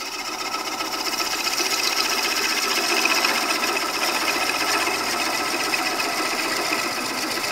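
Bowl gouge making a slow push cut across a spinning wooden bowl blank on a wood lathe: a steady, even cutting sound with a fine rapid rhythm from the turning wood. The slow pace of the gouge lets the wood come around and be cut cleanly instead of grooved.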